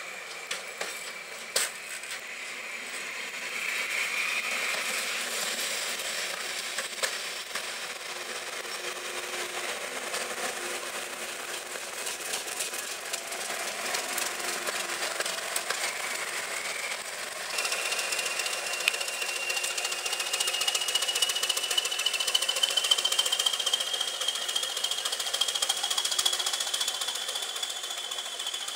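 A diesel-hauled train passing close by, wheels clicking and rattling over the rail joints, with a Class 55 Deltic's engines running as it goes past. About halfway through the scene changes to an English Electric Class 20 diesel pulling away, with a whine that rises slowly in pitch as it gathers speed.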